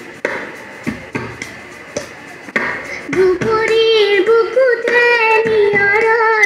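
A girl's singing voice, amplified through the stage PA, enters about three seconds in with long held, wavering notes over live band accompaniment. Before she comes in, only the backing is heard, with sharp rhythmic hits.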